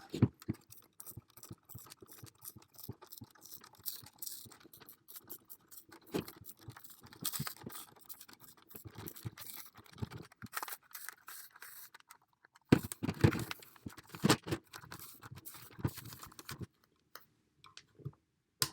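Tacky adhesive rubber pad being peeled slowly off the plastic underside of a small audio interface: irregular sticky crackling and scratching, louder for a few seconds past the middle.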